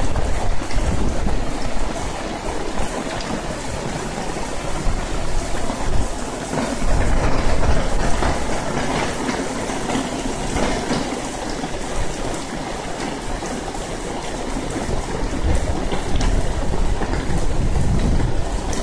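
Heavy rain pouring onto pavement and parked cars, a dense steady hiss. A low rumble under it is stronger near the start and near the end.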